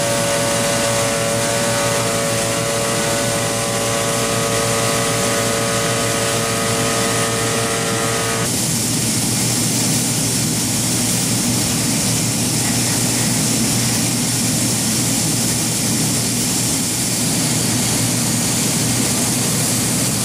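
Anderson Exxact Plus CNC router's spindle running with a steady whine of several tones over a loud, steady rushing machine noise. About eight seconds in, the whine cuts off suddenly and the rushing noise runs on alone.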